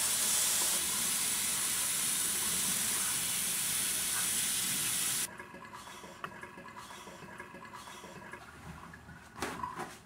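Kitchen faucet running into a stainless-steel sink as hands are washed under it, a steady hiss that cuts off suddenly about five seconds in when the tap is shut. Quieter small sounds follow, with a brief rustle near the end as the hands are dried on a towel.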